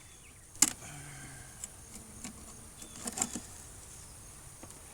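Knocks and clicks from a beehive being worked, as the hive tool and wooden frames strike the hive box. There is one sharp knock about half a second in and a quick cluster of clicks around three seconds in.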